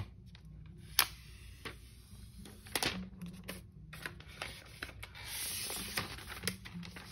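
Unboxing handling sounds as a laptop is lifted out of its cardboard box: a few sharp clicks and knocks, the loudest about a second in. About five seconds in comes a rustle as the soft protective wrap sheet is pulled off the laptop.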